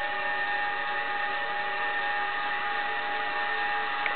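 Sound decoder of a Hornby model of the A4 steam locomotive Herring Gull playing a long, steady, several-toned steam whistle over a background hiss, through the model's small speaker. There is a small click near the end.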